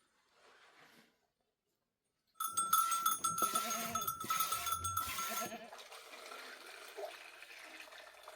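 A livestock bell on a sheep or goat clanking rapidly, starting suddenly a couple of seconds in and ringing for about three seconds, then dropping to a faint background with the flock.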